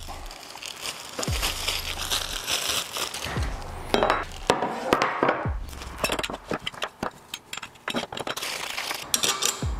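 A plastic hardware bag rustling, then the metal handle tubes of a reel mower clinking and knocking on a wooden workbench as they are laid out and picked up.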